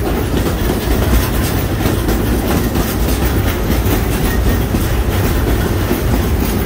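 Open-sided passenger coach of a narrow-gauge steam train rolling along the track: a steady rumble of the wheels on the rails, heard from inside the car.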